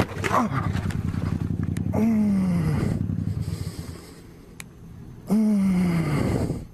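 Motorcycle crash from the rider's helmet: a sharp impact at the start, then the bike's engine still running for a few seconds. Twice, a low groan-like sound falls in pitch over about a second.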